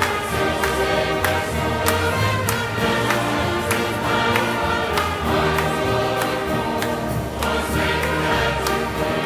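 Church choir singing a gospel song over instrumental accompaniment, with a bass line and a steady beat.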